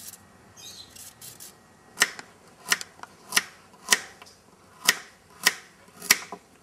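A vegetable peeler scraping a carrot faintly, then a small kitchen knife cutting the carrot into rounds on a wooden board: seven sharp, even knocks, a little under two a second, as each slice goes through and hits the board.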